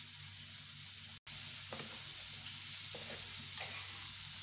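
Steady high-pitched hiss over a low hum, with a few faint soft touches of hands working the dough. The sound cuts out completely for a moment about a second in.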